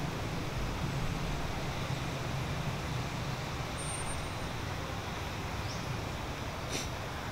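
Steady outdoor background rumble at an even level, with a short sharp click about seven seconds in.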